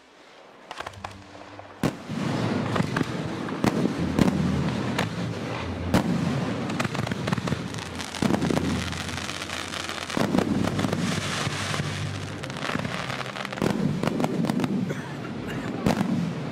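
Fireworks going off: a rapid, irregular run of sharp bangs over continuous crackle. It starts about two seconds in.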